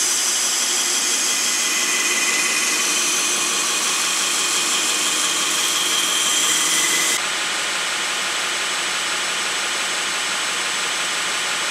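Bench-mounted belt sander running with a coarse belt while an old southern pine plank is sanded against it: a loud, steady grinding of wood on abrasive over the motor. The sound steps down slightly about seven seconds in.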